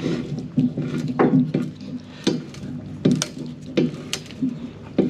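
Ratchet wrench tightening the clamp bolt that holds a pallet fork to the tractor's loader bucket: uneven clicks and knocks, about two a second, over a steady low hum.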